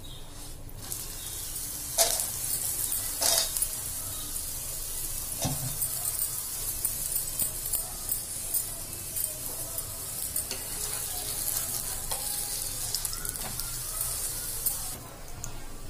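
Ghee sizzling steadily under a stuffed pea paratha frying on a tawa, with a few sharp clicks along the way. The sizzle drops away shortly before the end.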